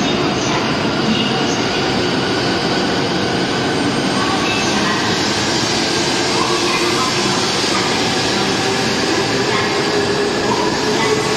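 Tohoku Shinkansen train running slowly alongside the platform: a steady rumble of running gear and wheels on rail, with a thin tone that rises a little in the last few seconds.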